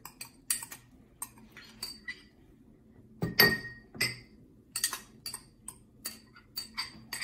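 A metal spoon clinking and scraping against small ceramic bowls as chopped vegetables are tipped and scraped out into a mixing bowl. It is a quick, irregular series of sharp clinks, with two louder ones about three and a half and four seconds in.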